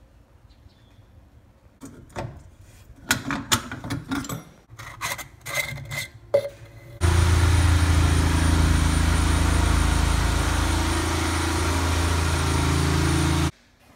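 Clicks and knocks of plastic drain fittings and a PVC primer dauber being handled. About seven seconds in, a loud steady noise with a low hum starts suddenly and cuts off shortly before the end; nothing shows what makes it.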